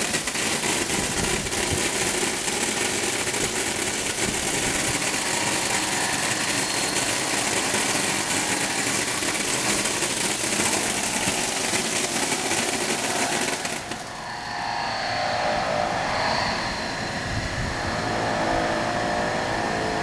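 Optical grain colour sorter running, a loud dense hiss of its compressed-air ejector jets firing as grain streams through it. About fourteen seconds in the hiss cuts off sharply, leaving a lower background din.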